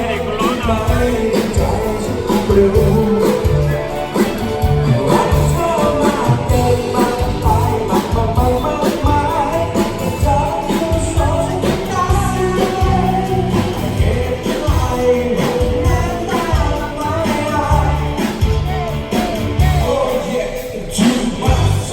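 A song with a singer over a band and a steady beat.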